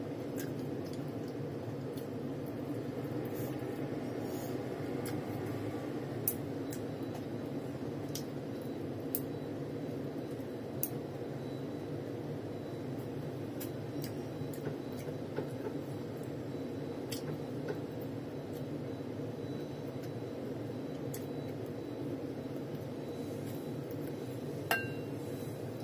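Light clinks of wooden chopsticks against a ceramic plate and bowl, a few scattered taps, over a steady low background hum.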